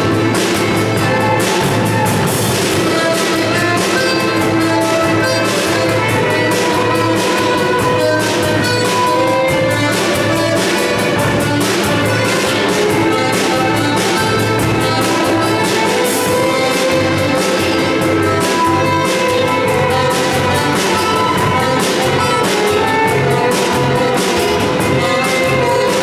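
Live small band playing an instrumental tune: violin and accordion carry the melody over guitars and a drum kit keeping a steady beat.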